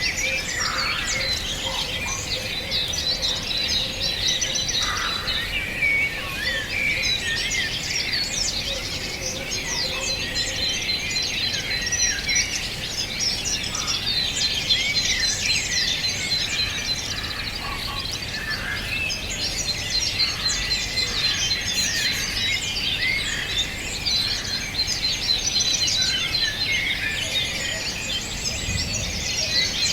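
A dawn-chorus-like mix of many songbirds singing and chirping at once, with dense, overlapping quick calls. A thin, steady high trill runs through several stretches.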